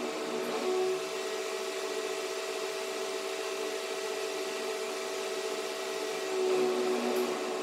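Steady machine hum with several constant tones, swelling briefly twice: about a second in and again near the end.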